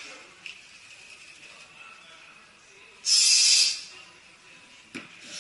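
A lifter's sharp, loud hissing exhale through the teeth, lasting under a second about three seconds in, as he strains under a 230 kg barbell squat. A short knock follows near the end.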